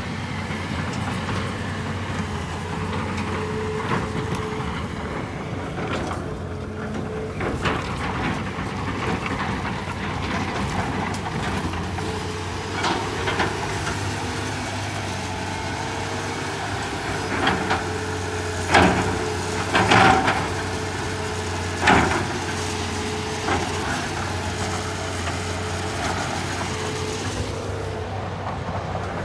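Hitachi EX200 hydraulic excavator's diesel engine running steadily, with a handful of sharp knocks in the second half.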